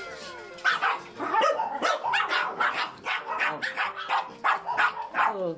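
Dogs barking over and over, about three short barks a second.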